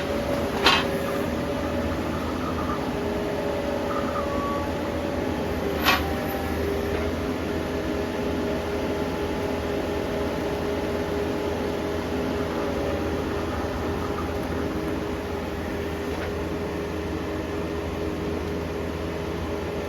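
An engine running steadily, with three sharp knocks: two in the first second and one about six seconds in.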